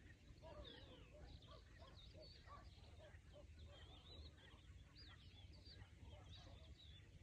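Faint chorus of many birds calling, a dense scatter of short high chirps and some lower calls, over a steady low rumble.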